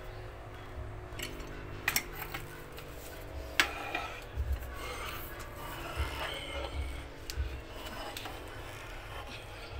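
Pipe wrench being clamped onto and turning a threaded metal pipe fitting: metal scraping and rubbing, with a few sharp metallic clicks.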